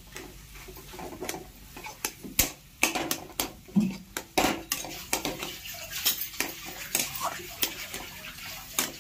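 A spatula scraping and knocking against a kadai as a potato, carrot and tomato filling is stirred and mashed in it. The clacks are irregular, starting about two seconds in and coming two or three a second.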